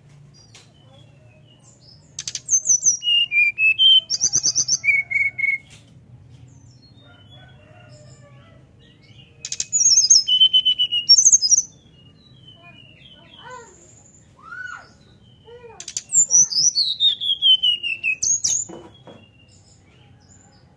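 Brown-chested jungle flycatcher singing in three bouts of high, flute-like whistled phrases. The last bout holds a long whistle that falls steadily in pitch.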